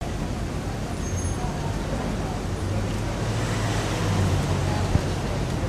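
Downtown city street ambience: steady traffic noise with the low hum of a vehicle engine, and a single sharp knock near the end.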